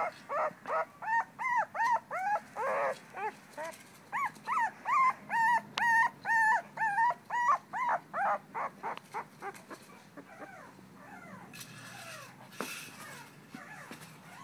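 Two-week-old American pit bull terrier puppy crying in a quick run of short, high whimpers, about three a second, which grow fainter after about nine seconds. There is a brief rustle about twelve seconds in.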